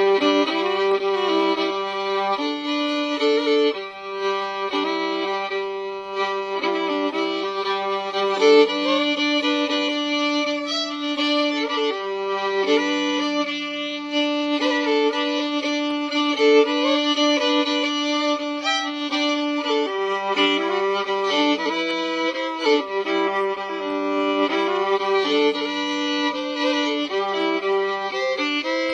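Fiddle playing an old-time tune without singing, the melody running over sustained low drone notes that drop out and come back.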